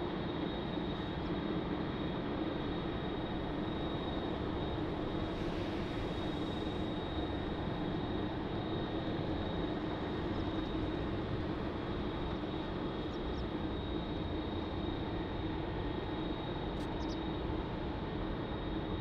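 Steady jet engine noise of a Boeing 777-200ER airliner at takeoff power during its climb-out, an even rumble with a faint steady whine above it.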